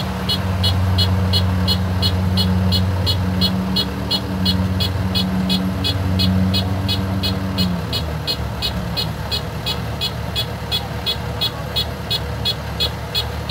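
Kubota DC-105X combine harvester running, its engine note steady with a fast regular ticking of about four a second from the machinery. About eight seconds in the engine's low note drops away while the ticking goes on.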